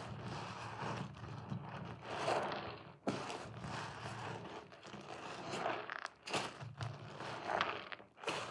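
Thick soap lather squelching and crackling as a soaked loofah sponge is squeezed and kneaded by hand, in a run of irregular wet squishes with a few sharp pops.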